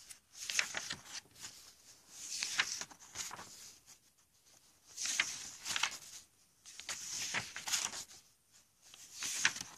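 Paper notebook pages being turned and handled, a series of crisp paper rustles that come about every two seconds.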